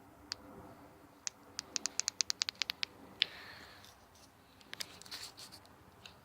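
Small sharp clicks: a quick, even run of about a dozen, a louder single click just after, and a few more near the end. No horn sounds.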